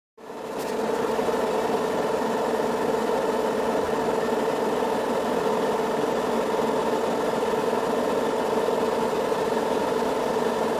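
A steady engine-like mechanical hum that starts abruptly and then runs at an even level.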